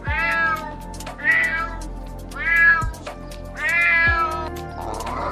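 Domestic cat meowing four times, each meow rising slightly and then falling in pitch, over background music with a low beat.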